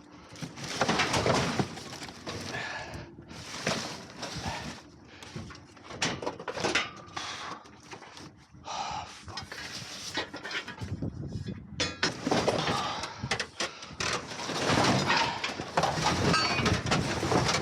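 Scrap metal and junk in a dumpster clattering, knocking and scraping irregularly as items are shifted and pulled out by hand.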